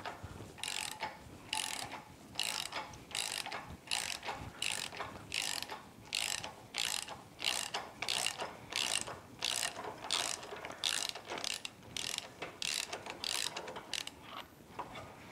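Ratchet wrench clicking in short repeated bursts, about two a second, as it turns the forcing screw of a puller drawing an outboard lower unit's prop shaft housing out.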